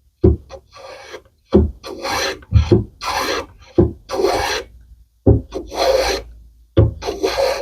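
A No. 5 jack plane being pushed in repeated strokes along the end of a wooden slat, thinning it. Each stroke starts sharply and then goes on as a hissing shave, about one a second.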